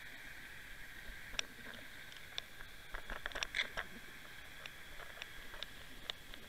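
Underwater sound picked up by a camera towed along a sandy seabed: a steady hiss with irregular sharp clicks and ticks, bunched together about three to four seconds in.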